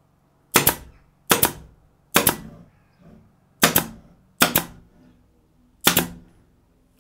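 Air-powered pin nailer firing six pins into plywood: six sharp shots, spaced unevenly about a second apart.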